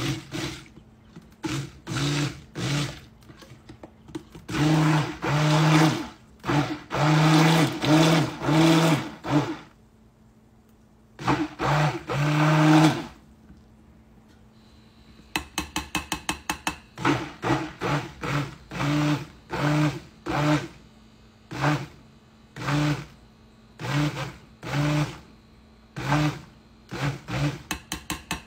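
Stick blender whirring in short on-off pulses as it mixes melted oils for lotion bars. It stops for a few seconds near the middle, then comes back in shorter, quicker pulses.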